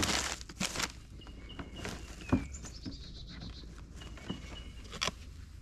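A bird calling: one short call falling in pitch about two and a half seconds in, with a few faint higher chirps around it. Several light knocks come through as well, the loudest just before the call, over a steady low rumble.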